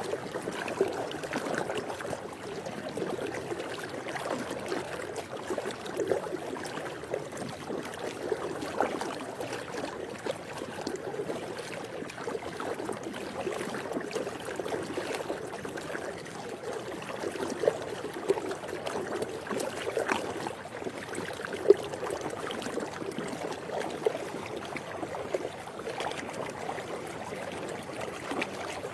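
Swimming-pool water moving and lapping steadily, with small irregular splashes and one sharper splash about three-quarters of the way through.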